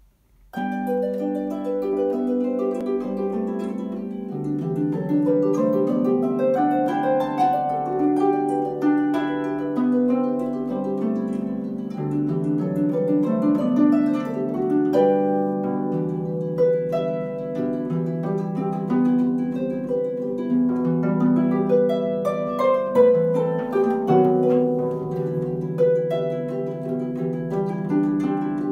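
Solo harp playing a piece of music, with plucked notes ringing on over one another above a sustained low bass line. The playing starts about half a second in.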